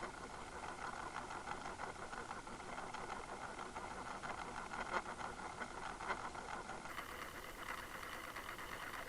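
Boat engine running steadily, heard muffled underwater through a towed camera's housing, with a fast, even ticking rattle running through it.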